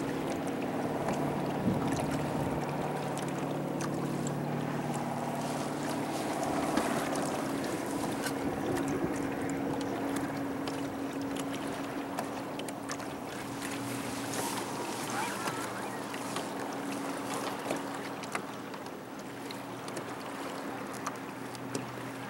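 Motorboat engine running at a steady pitch, with water hissing and splashing along the hull.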